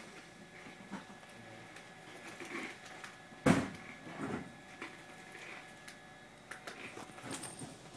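Quiet interior of a halted electric commuter train car: a faint steady high tone with one sharp knock about three and a half seconds in and a few light clicks near the end.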